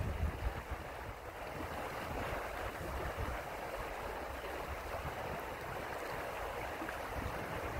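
Steady rush of a fast-flowing river over a riffle, with wind buffeting the microphone in low, uneven gusts.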